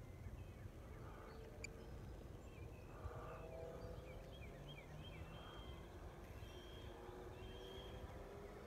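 Faint, distant hum of a radio-controlled model plane's motor, its pitch drifting slowly, over a low rumble of wind on the microphone. Birds chirp several times in the middle.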